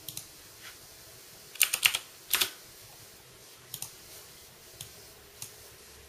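Computer keyboard keys clicking in a few short runs, the loudest about two seconds in. Beneath them runs a faint steady whir from the MSI GTX 660 Ti Power Edition's twin 80 mm Twin Frozr IV fans, which are being stepped up to about 50% speed, where they are beginning to be audible.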